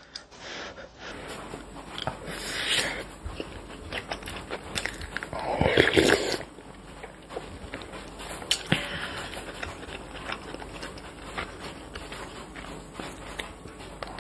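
Close-up eating sounds: a person chewing rice and stew with wet mouth noises, and light clicks of chopsticks and a spoon against bowls. There are two louder stretches of mouth noise, about two and a half and six seconds in.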